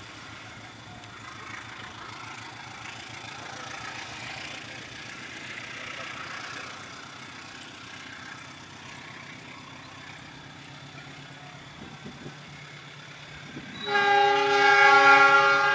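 A train rolling faintly along the track, then near the end a locomotive horn sounds one loud, steady blast made of several pitches at once.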